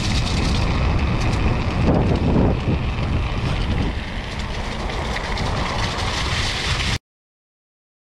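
Fantic e-mountain bike rattling and clattering over a cobbled path, with wind rushing over the action-camera microphone. The sound cuts off abruptly to dead silence about seven seconds in.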